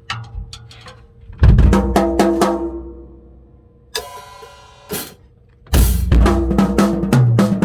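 Tama drum kit with Evans heads being played: a few light taps, then a fast fill across the tuned drums that rings out and fades. Two single hits follow with a cymbal shimmering, and near the end a steady loud beat starts.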